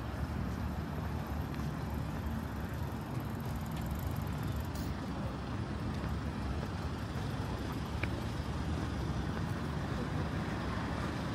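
City street traffic noise: a steady low rumble of passing road vehicles.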